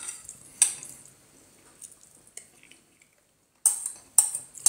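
Metal spoon clinking and scraping against a ceramic bowl while scooping food: one sharp click about half a second in, a quiet stretch, then three quick sharp scrapes in the last second.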